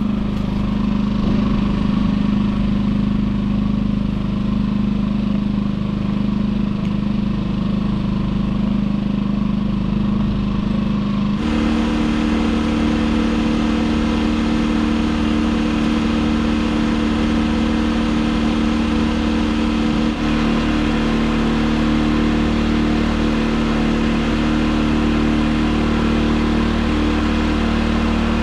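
Champion inverter generators running steadily, warming their engine oil for an oil change. The engine tone shifts abruptly a little over a third of the way through.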